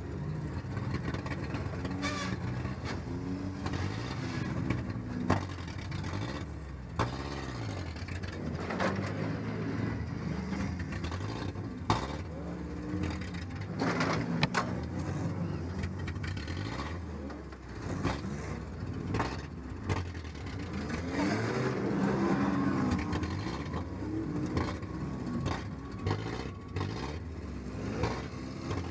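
1997 Ford Ranger's engine, heard from inside the cab, revving up and falling back again and again while driven in a demolition derby, with several sharp bangs and clatter from impacts.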